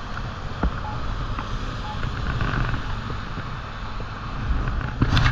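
Wind buffeting the microphone over a steady hiss of wet road noise, with a sharp knock just before the end.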